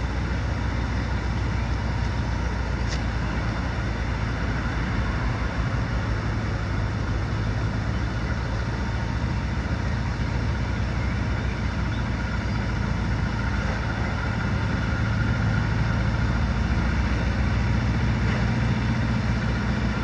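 A steady low engine-like hum, as of a motor vehicle idling, holding evenly with a faint click about three seconds in.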